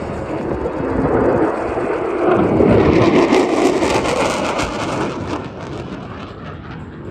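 F-22 Raptor's twin-engine jet roar as the fighter passes. It builds to a crackling peak about three to four seconds in, then fades away.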